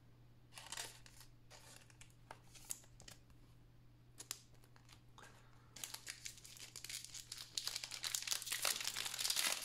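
A few light clicks and taps as trading cards are handled. Then, from about six seconds in, a foil Panini NBA Hoops card pack crinkles and is torn open, getting louder toward the end.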